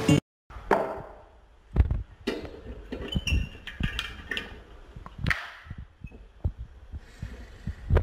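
Irregular light knocks and clicks of a large glass whiskey bottle being handled in its metal tilting stand, with a few sharper knocks.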